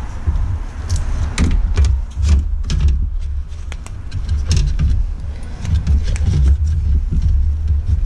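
Plastic radiator fan and shroud being worked into place in the engine bay, knocking and scraping against surrounding parts in many irregular sharp clicks and knocks over a steady low rumble.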